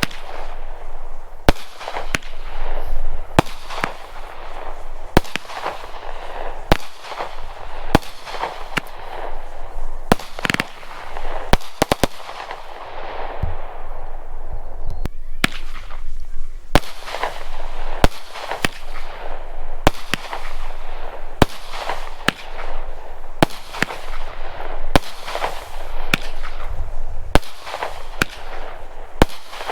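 200-gram Mad Ox consumer firework cakes firing shot after shot: repeated sharp reports about a second apart, with crackling between them.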